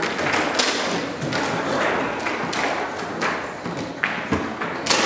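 Table football in play: the ball knocked and passed by the players' figures, clacking off the figures, rods and table walls in irregular sharp knocks, a few a second, with a deeper thud about four seconds in.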